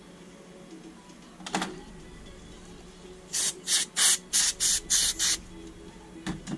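Aerosol spray can giving about seven short hissing sprays in quick succession, after a single knock.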